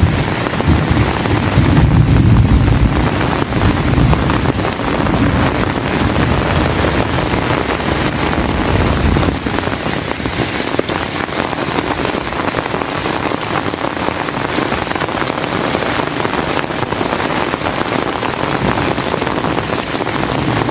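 Heavy rain pouring steadily, with a low rumble under it for about the first nine seconds that then fades out.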